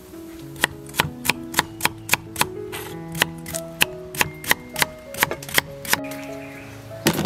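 Crinkle-cut knife chopping through a carrot onto a wooden board: a run of sharp knocks, about three a second, stopping about six seconds in. Background music plays underneath.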